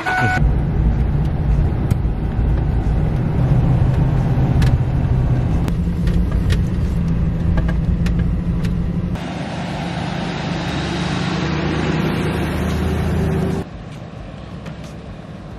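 2008 Ford Econoline van driving on a dirt road: steady engine drone and road noise heard from inside the cab, with scattered knocks and rattles. Near the end it drops to a quieter, more distant vehicle sound as the van is heard from outside.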